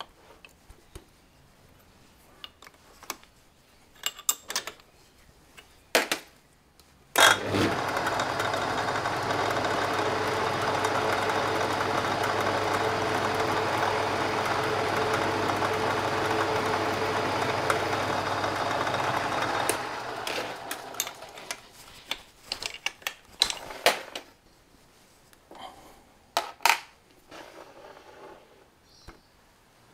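Old metal lathe switched on and running steadily for about twelve seconds while a center drill in the tailstock is fed into the spinning workpiece, then switched off and running down. Sharp metallic clicks and knocks of tools and the tailstock drill chuck being handled come before and after.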